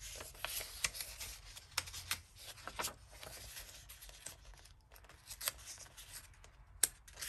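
Pages of a paperback coloring book being turned and pressed flat by hand: soft paper rustling with scattered crisp flicks, and a sharper paper snap near the end.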